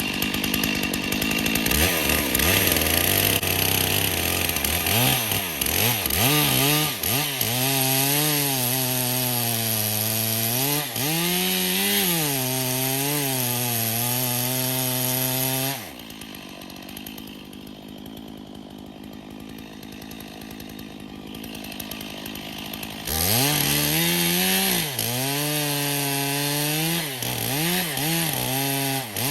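Stihl chainsaw cutting into wood, its engine pitch dipping and recovering under load. About halfway through the saw sound falls away for several seconds, then it comes back and cuts again.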